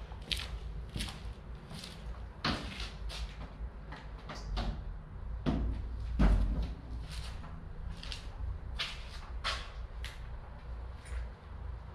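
Footsteps of sneakers on a gritty concrete floor, walking, about two steps a second, over a steady low rumble. A louder knock comes about six seconds in.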